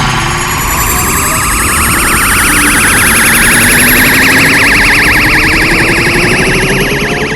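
Dragon Ball Kamehameha energy-beam sound effect: a loud, sustained electronic whine with a fast warble, its pitch slowly rising.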